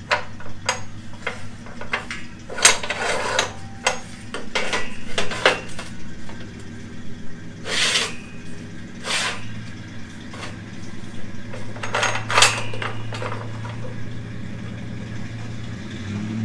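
Metal clanks and rattles of an E-track rail being slid into place on an abrasive chop saw and clamped in its vise, with a steady low hum underneath.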